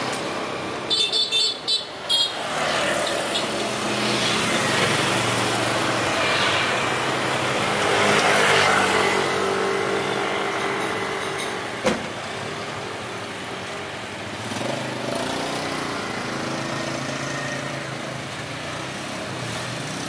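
Street traffic: vehicles passing one after another, swelling and fading, with a quick run of short horn toots about a second in.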